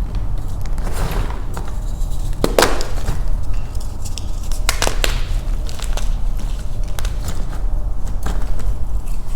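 Block of Beasty gym chalk being crushed in the hands: crunchy, glassy crackling with sharp snaps, the loudest about two and a half seconds in and again near five seconds.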